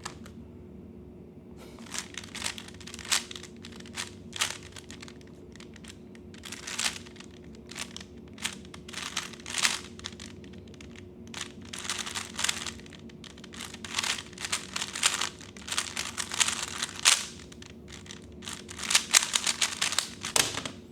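3x3 Rubik's Cube being turned rapidly during a timed speedsolve: quick runs of plastic clicks and clacks from the layers snapping round, starting about two seconds in and getting busier near the end.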